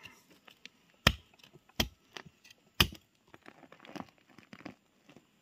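A metal pipe jabbed into soil to dig out termite mushrooms: three sharp thuds in the first three seconds, with lighter scrapes and ticks of soil and leaf litter between and after them.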